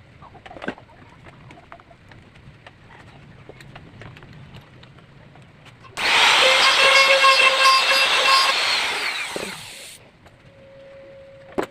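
A handheld power tool runs for about four seconds with a steady high whine, boring the hole for an adjuster nut in a track saw rail, then winds down. Light handling clicks and knocks come before it, and a sharp click comes near the end.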